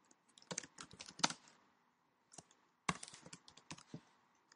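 Typing on a computer keyboard: two short runs of key clicks, the first about half a second in and the second near the three-second mark, with a pause between.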